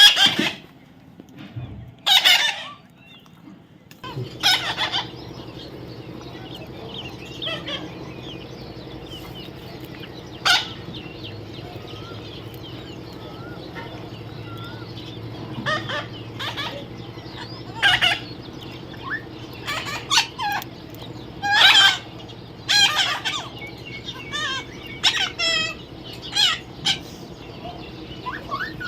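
Parrots giving loud, short, harsh screeching calls at irregular intervals, with a steady low hum underneath from about four seconds in.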